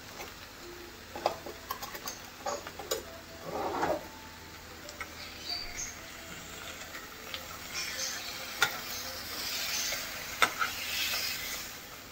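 Marinated chicken breast fillets sizzling in oil in a non-stick frying pan, with clicks and scrapes of a metal slotted spoon pushing and turning them. The sizzle grows louder in the second half, with a few sharp knocks of the spoon against the pan.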